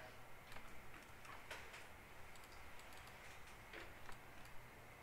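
Faint, irregular clicking of a computer mouse and keyboard: a handful of sharp, separate taps spread over a few seconds.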